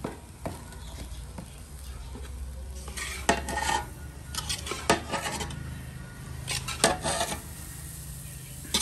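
A long metal ladle stirring and scraping semolina roasting in ghee in a large karahi, with scattered clinks and scrapes of metal on the pan as the semolina is turned.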